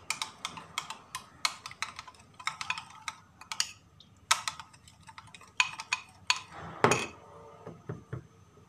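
A spoon clinking against a bowl while sauce is stirred: quick, irregular clinks with a short ring, stopping shortly before the end.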